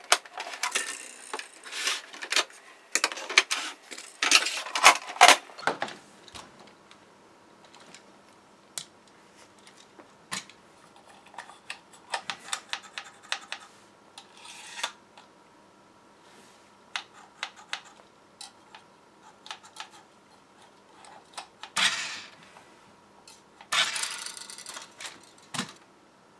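Plastic clicking and clattering as a toy radio-control car and its handset are handled and their switches and antennas worked, busiest for the first few seconds. Near the end come two short whirring bursts from the Auldey Race-Tin Wild Ranger X's small electric drive motor and gears. The car responds only with the handset's antenna held right up to it, a sign of a weak transmitter amplifier or an insensitive receiver.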